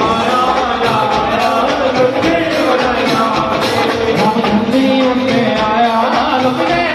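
Music with a singing voice and instrumental accompaniment.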